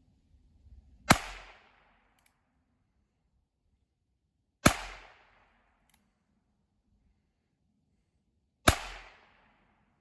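A firearm fired three times in slow, deliberate succession, about three to four seconds apart, each shot sharp and followed by a short echoing tail.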